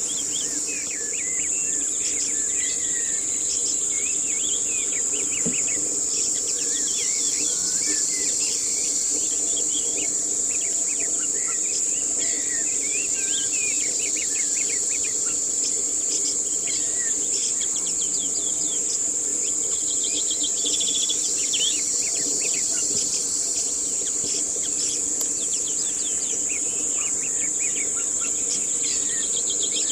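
Insects droning in one steady, high-pitched tone, with many birds chirping over it.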